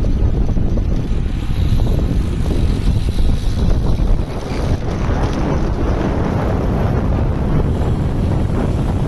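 Wind rushing and buffeting over the microphone of a camera carried on a moving road bicycle. It is a loud, steady rumble, and about halfway through it turns more hissy.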